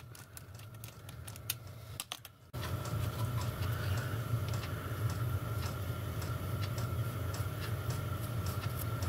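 Light clicks and taps of brass tank panels and a small flux brush being handled on a workbench, over a steady low hum. The clicks are quick and close together at first. The hum steps up about two and a half seconds in, with sparser ticks above it.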